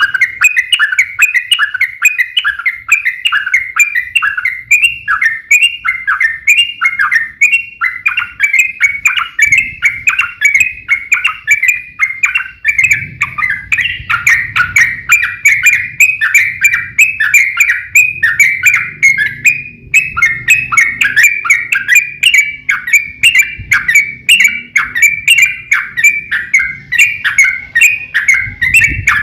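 Yellow-vented bulbul (trucukan) singing in a long, rapid, unbroken run of quick chattering notes, several a second: the aggressive 'fighting' song used as a lure to make other bulbuls answer.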